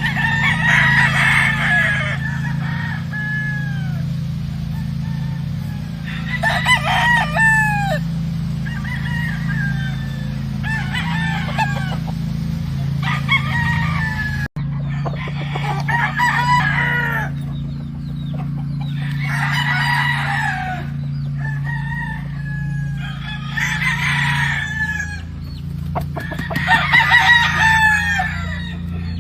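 Several roosters crowing one after another, a drawn-out crow every few seconds, with some clucking between. A steady low hum runs underneath.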